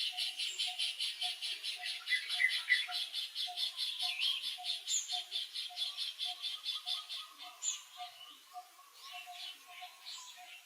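Forest wildlife chorus: a fast, even pulsing call at about seven beats a second, with a few short high bird chirps over it. The pulsing thins out and fades in the last couple of seconds.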